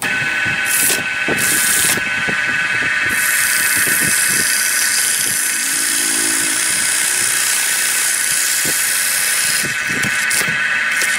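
Electric wood lathe running with a wooden disc spinning on it: a steady high whine, with the hiss of sandpaper pressed against the spinning wood.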